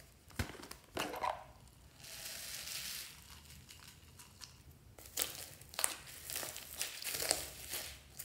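Two plastic knocks from a toy container near the start, then a soft rustling hiss of small foam beads poured onto slime. From about halfway, crackling and crunching as hands press and squeeze into the foam-bead-covered slime.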